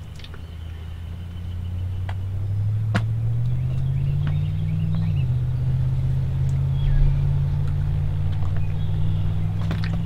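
Motor vehicle engine getting louder as it comes closer, its pitch climbing, then dropping abruptly about five seconds in, as with a gear change, and running on steady. Faint bird chirps sound above it.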